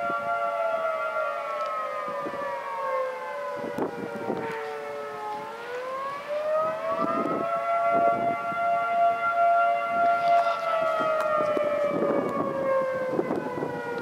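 Federal Signal 2T22 dual-tone outdoor warning siren sounding the attack signal. Its two-note chord sinks over the first few seconds, climbs back about six seconds in, holds, then sinks again near the end. Wind gusts buffet the microphone.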